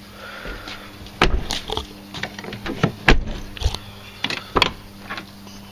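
A string of sharp knocks and clicks, about seven in a few seconds, over a steady low hum.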